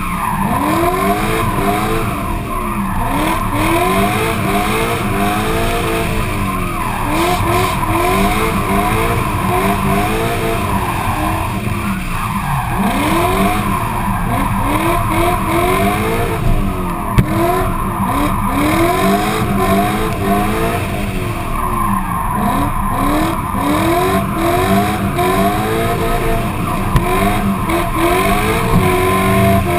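Race car engine revving up and down hard, its pitch rising and falling about once a second as the throttle is worked through a drift, with tyres skidding and squealing throughout.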